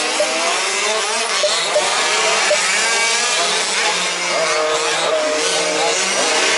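Several 1/5-scale petrol RC off-road buggies with small two-stroke engines racing together, a high buzzing mix of engines revving up and down as they accelerate and brake around the track.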